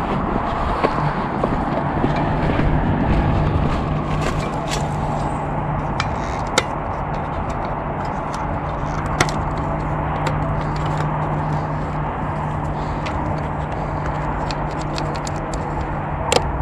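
A motor vehicle's engine running steadily at an even pitch under a constant rushing noise, with scattered light clicks as a trail camera is handled and opened.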